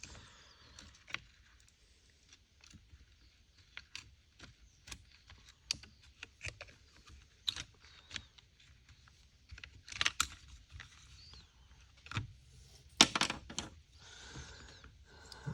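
Small plastic and metal parts of a chainsaw's top handle (trigger, spring, palm safety) clicking and tapping as they are handled and fitted back together: scattered light clicks, with a louder burst of clatter about thirteen seconds in.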